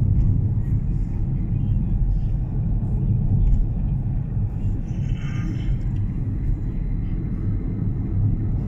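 Steady low rumble of engine and road noise inside a moving car's cabin. A faint, brief higher sound comes about five seconds in.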